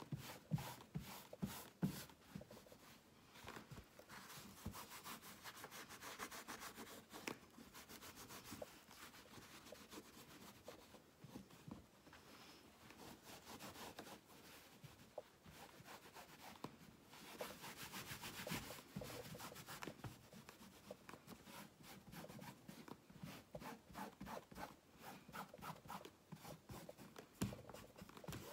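Hands rubbing and pressing denim fabric laid over wet paint: faint, irregular rubbing strokes of palms and fingertips on the cloth, pressing it so the denim soaks up excess paint and prints its stitching into the surface.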